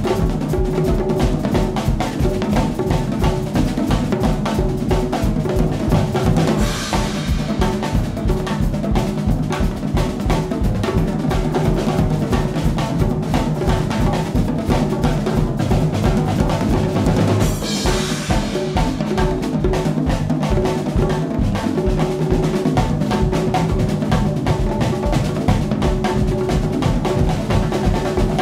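Four drum kits playing together in a fast, dense ensemble groove: rapid strokes on snares, toms and bass drums, with tuned drum tones ringing under the rhythm. Cymbals wash over it twice, about 7 and 18 seconds in.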